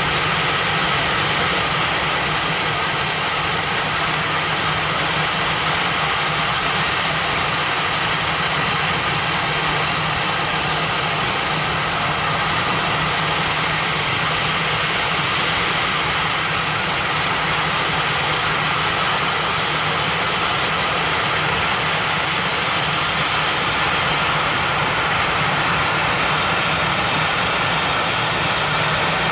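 Jet airliner engines running steadily, a rushing hiss with a thin high whine on top that holds an even level.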